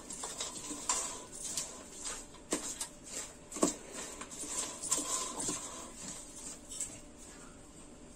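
A metal spoon scraping and clinking against a steel mixing bowl as it stirs a dry, crumbly laddu mixture of flour, semolina and dry fruit, in irregular strokes that die away near the end.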